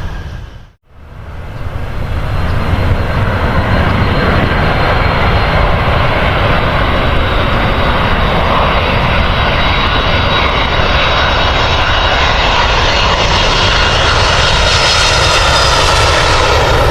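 Airliner engines running with a loud, steady roar and a thin high whine, growing stronger toward the end as the aircraft draws nearer. The sound drops out briefly about a second in.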